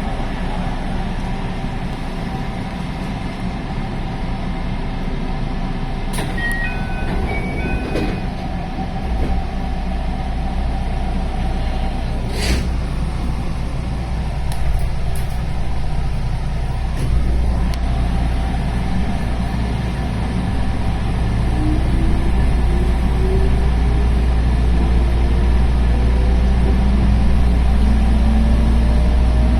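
A JR West 221 series electric train running, its DC series-wound traction motors humming under the steady rumble of wheels on rail. Near the end the motor hum climbs steadily in pitch as the train accelerates. A short run of stepped beeping tones sounds about six seconds in, and a single sharp click about halfway.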